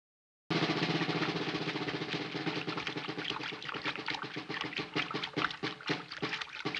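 Old film soundtrack of water splashing and churning as someone is dragged through shallow marsh water, with a steady low tone underneath. It starts abruptly about half a second in, with irregular splashes throughout.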